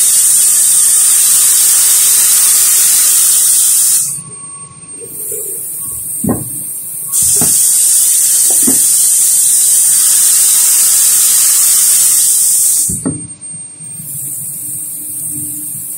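Loud steady hiss with a thin high whistle, like air escaping under pressure, that cuts off sharply about four seconds in, comes back about three seconds later and cuts off again near the end. In the quieter gaps the knocks of wooden panels being handled on a table.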